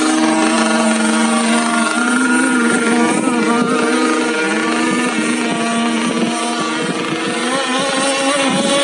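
Several radio-controlled racing model boats running at once, their high motor whines wavering in pitch against each other as they race.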